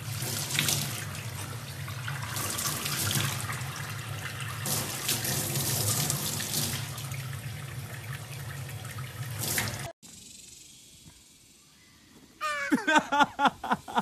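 Water from a tap running steadily into a stainless-steel sink and splashing over a young chimpanzee's hands, cutting off suddenly about ten seconds in. After a short quieter lull, loud voice-like calls start near the end.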